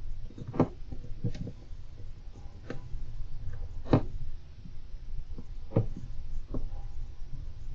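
Golden hamster moving about its cage: irregular light clicks and knocks, about eight in all, the loudest about four seconds in, over a steady low rumble.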